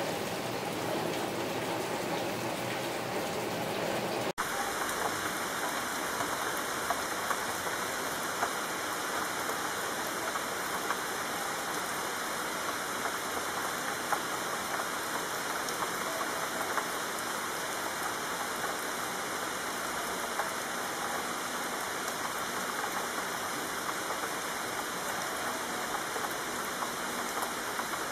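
Steady rain, a dense hiss of many drops. About four seconds in it drops out for an instant and switches to another rain recording, a hiss with scattered sharper drop ticks.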